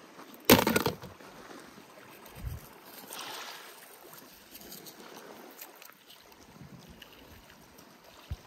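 A short loud rush of noise about half a second in, then quiet scraping and clicking of beach pebbles as a hand digs through the shingle.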